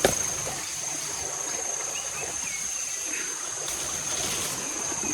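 Outdoor ambience: a steady high-pitched insect drone, typical of crickets, over an even hiss, with a soft knock right at the start.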